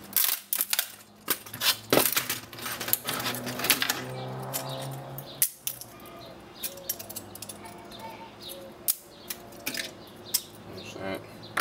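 A CRT monitor's circuit board being broken apart by hand: irregular sharp clicks, snaps and small clatter as components and board pieces break off and knock against the work surface.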